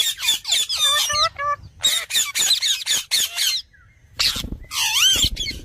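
Parrot calling: a quick run of harsh squawks mixed with warbling, wavering whistles, a brief pause about three and a half seconds in, then a loud screech with a whistle that dips and rises.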